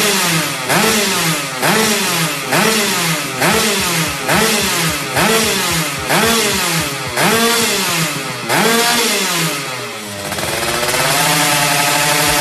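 Two-stroke single of a Yamaha F1ZR underbone motorcycle running through a stainless roadrace expansion-chamber exhaust, revved in about ten quick throttle blips, one every second or less. Near the end the revs fall away and it settles into a steady idle.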